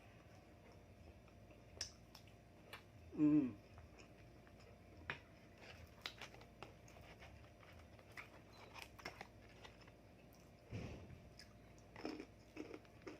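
Close-miked chewing and crunching of fried spring rolls (Lumpiang Shanghai), with scattered small crackles throughout. About three seconds in there is a short falling hum from the eater.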